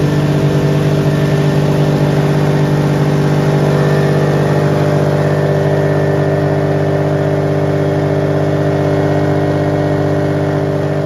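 Ryobi 2300 inverter generator's single-cylinder four-stroke engine running loud and steady at a constant speed, just after starting. The engine runs normally, but the generator is making no power and shows an overload fault, which points to a failed inverter module.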